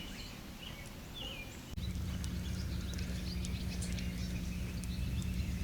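Outdoor background with a few faint bird chirps. About two seconds in, it changes abruptly to a steady low hum with scattered light ticks.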